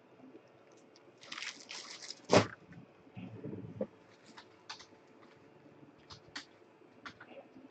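Plastic packaging and bubble wrap crinkling as a bagged jersey is handled, with one sharp knock about two and a half seconds in, then scattered light clicks.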